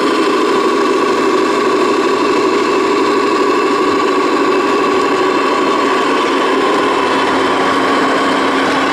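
Radio-controlled scale truck running slowly past at close range: a steady engine-like hum with a higher whine over it, a lower note joining about six seconds in.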